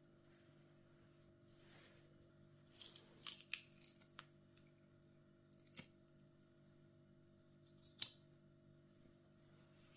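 Faint food-preparation handling sounds. A short run of crisp, sharp snips about three seconds in, then two single clicks, the louder one about eight seconds in.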